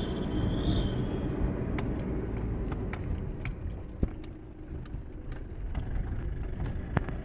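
Toyota Hilux 2KD four-cylinder turbodiesel running under way, heard from the cab as a steady low rumble. A thin high whistle fades out about a second in; this is the intermittent whistle the owner suspects comes from the air intake. After it come many light metallic clicks and jingles.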